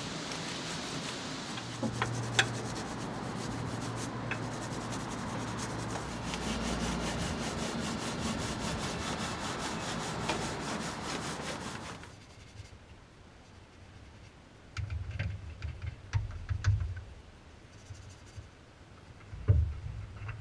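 Detailing brush scrubbing foamy all-purpose cleaner over the engine's plastic air box covers, a steady wet scrubbing. About twelve seconds in it drops to quieter brushing with scattered light taps and a few low knocks.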